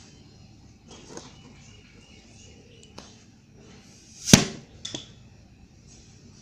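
A pressurised plastic bottle cannon going off: one sharp bang about four seconds in as the compressed air blows out, followed by a fainter knock about half a second later.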